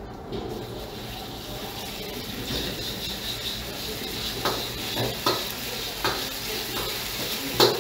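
Garlic and oyster sauce sizzling in a little oil in a wok while a long metal ladle stirs them. The ladle scrapes and knocks against the wok about six times in the second half, loudest near the end.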